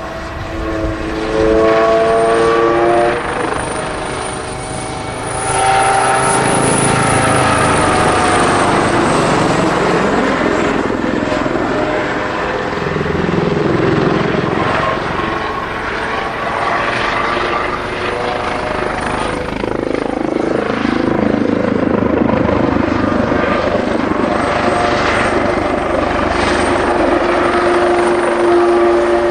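Kawasaki OH-1 scout helicopter flying low overhead: its twin turboshaft engines whine high while the rotors add a dense steady thrum. The pitch of the engine whine and rotor tones rises and falls as the helicopter passes and turns.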